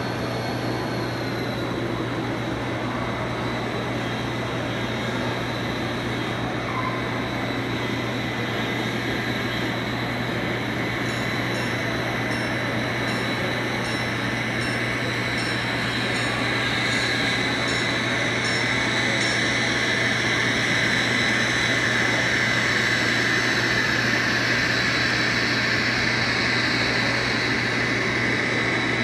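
Model railroad freight train running along the layout track: a steady running rumble and rattle of the locomotives and cars, over a constant low hum, growing slightly louder in the second half.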